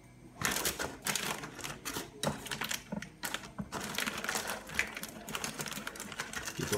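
Metal spatula scraping and tapping on baked sea bass and the foil under it, with the baking paper around it crinkling, as skin and bones are worked off the fish. A quick, uneven run of clicks and scrapes starts about half a second in.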